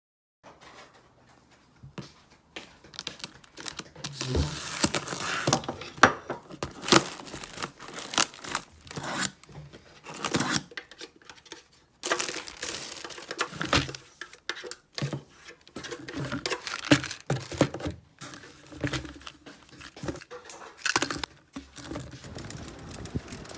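Wrapping being handled: irregular crinkling and tearing with sharp clicks and rustles.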